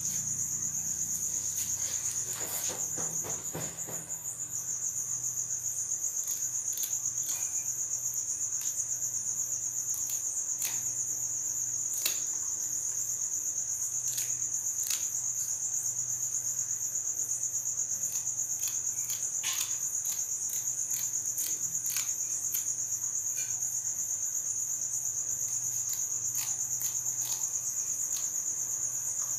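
Crickets trilling in one steady high-pitched drone, with scattered short clicks and snips as scissors cut into a snakehead fish.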